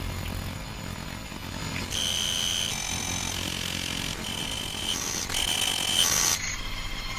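A low rumbling drone, then from about two seconds in a run of high, steady electronic alert tones that switch on and off and change pitch several times before cutting off near the end.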